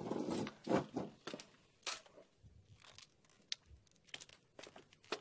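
Rustling and movement of people getting up from a table and walking off: a brief scrape and rustle at the start, then scattered light knocks, clicks and footsteps.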